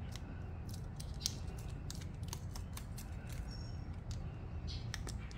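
Paper backing being peeled off adhesive Talon grip tape, and the gritty tape being pressed and rubbed by hand onto a Glock 26's polymer frame: a run of small, irregular crinkling clicks over a low, steady hum.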